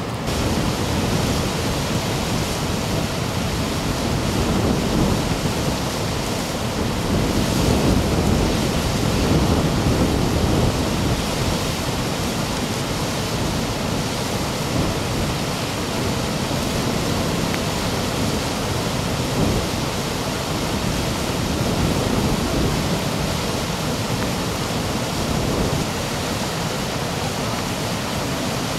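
Floodwater rushing past in a steady, loud wash of noise that swells and eases slightly.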